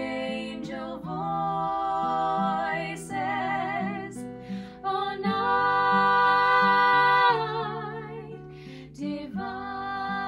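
Two women singing together to an acoustic guitar, with a long held note in the middle.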